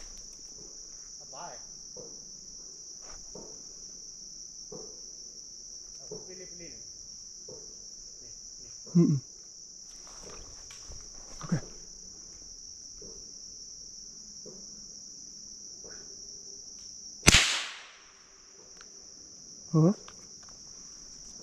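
Steady, high-pitched chorus of insects such as crickets or cicadas, broken about seventeen seconds in by a single loud, sharp crack that rings off quickly. The insect sound dips for a moment after the crack.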